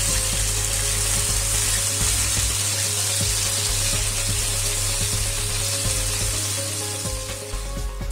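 Coated chicken pieces deep-frying in oil at medium heat: a loud, steady sizzle of bubbling oil as more pieces are added one by one, easing slightly near the end.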